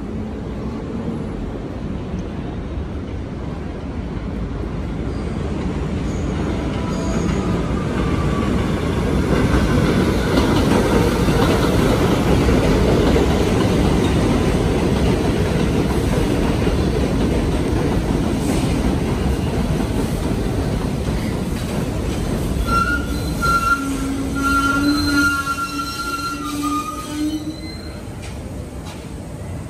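R62A subway train running on the rails: its rumble builds over several seconds and holds, then the wheels squeal in steady high-pitched tones for about five seconds near the end before the noise falls away.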